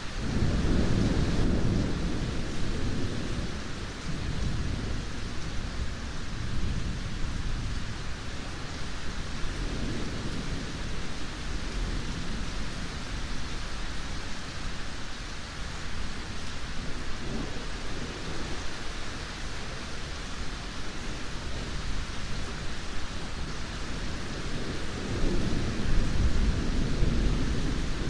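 Steady heavy rain with low, rolling thunder. The rumble is strongest in the first few seconds, swells again briefly about ten seconds in, and builds once more near the end.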